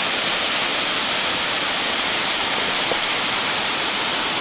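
Waterfall rushing: a loud, steady, even hiss of falling water.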